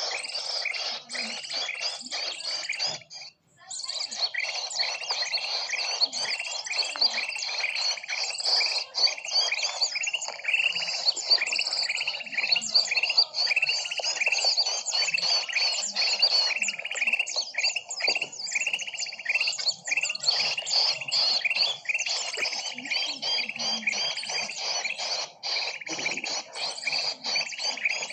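Bird-luring recording of many small birds chirping and twittering together in a dense, rapid, unbroken chorus. It breaks off briefly about three seconds in, then resumes.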